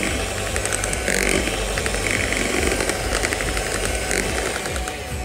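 Electric hand mixer running steadily, its beaters whirring through creamed sugar cake batter in a glass bowl, with repeated light clicks.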